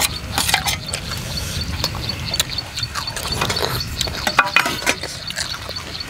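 Eating sounds: mouths chewing and slurping instant noodles, with a steel spoon clinking and scraping in a stainless-steel tray in short, irregular clicks.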